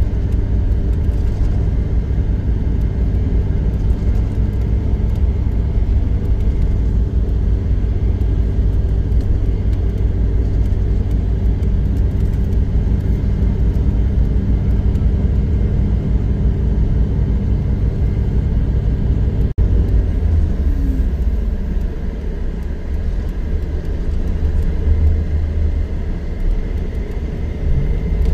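Car driving, heard from inside the moving vehicle: a steady low road-and-engine rumble. It cuts out for an instant about two-thirds of the way through, and after that the engine pitch rises briefly a couple of times.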